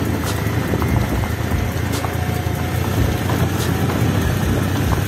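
Motorcycle running on a rough gravel road, with a steady low rumble of wind on the microphone and a few sharp clicks from bumps.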